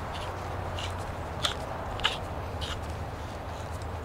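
Double-ended chamfer tool being turned by hand on the end of a polyethylene gas pipe, its blade shaving the plastic with a short scrape about every two-thirds of a second; two scrapes near the middle are sharper.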